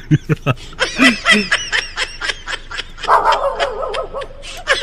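Laughter in a quick run of short bursts.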